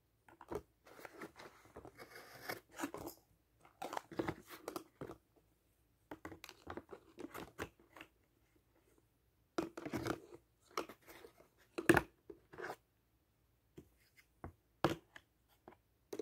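Paper and cardboard pieces rustling, crinkling and tapping as they are handled and set in place, in irregular bursts with short pauses and a few sharper taps, the loudest about twelve seconds in.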